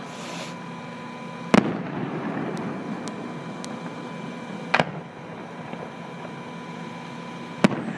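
Aerial fireworks shells bursting at a distance: three sharp booms a few seconds apart, the first followed by a low rumble.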